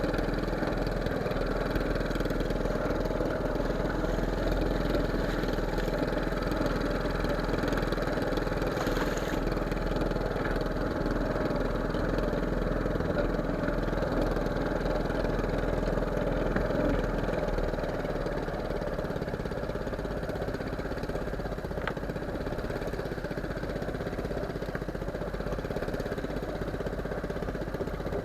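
Small fishing boat's engine running steadily, easing slightly quieter about two-thirds of the way through.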